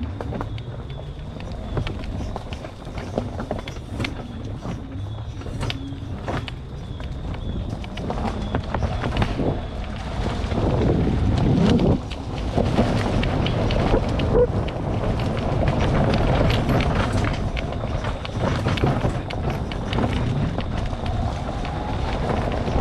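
Four-hub-motor electric ATV riding a wooded trail: tyres rolling and crunching over the forest floor, with repeated clicks and knocks from the ground and the machine. There is no engine sound, only a faint steady high whine during the first several seconds.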